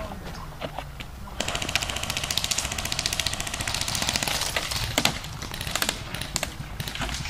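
Airsoft gun firing a long full-auto burst, a fast even run of sharp clicks, starting about a second and a half in and lasting about three and a half seconds, followed by a few scattered single shots.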